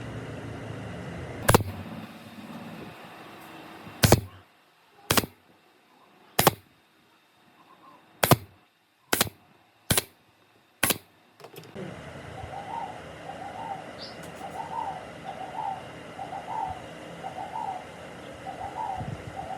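Eight sharp knocks, spaced unevenly over the first twelve seconds. After them a dove coos softly and repeatedly, about once a second, over steady background noise.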